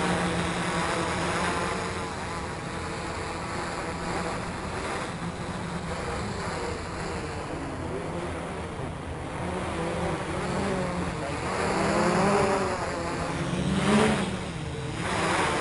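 Quadcopter's four electric motors and propellers buzzing overhead, the pitch wavering up and down as the motors change speed. It is loud as the quadcopter passes close at the start, fainter as it flies off, and louder again about twelve to fourteen seconds in as it comes back close.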